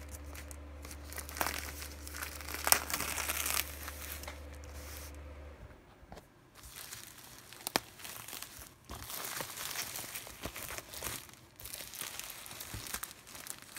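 Clear plastic shrink-wrap crinkling as it is peeled off a cardboard Blu-ray sleeve by hand, in irregular bursts with sharp crackles and a short lull about halfway.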